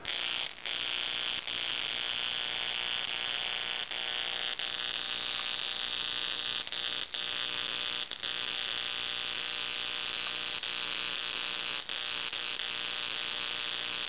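High-voltage electric arc from a pair of automotive ignition coils run off mains power through a light dimmer and run capacitors, buzzing steadily with a harsh hiss. It starts abruptly and cuts out for an instant a few times.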